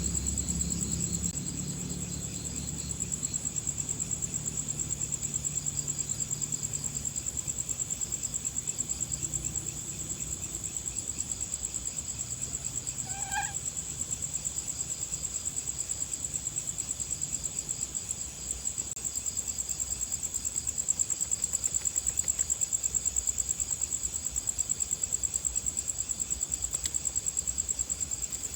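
Insects chirping in the grass, a continuous high-pitched, rapidly pulsing trill like crickets. A single short animal call sounds once about halfway through.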